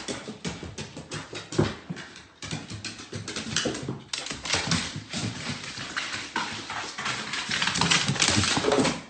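A dog's claws clicking and scrabbling quickly and irregularly on a hard surface.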